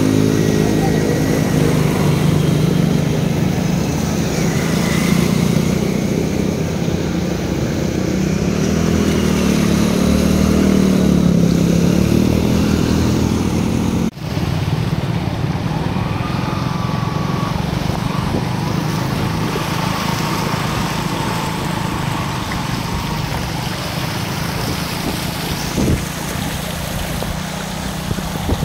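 Small motorcycle engines running and revving through ankle-deep floodwater, with water splashing and churning around the wheels. A cut comes about halfway, after which the engine hum is steadier.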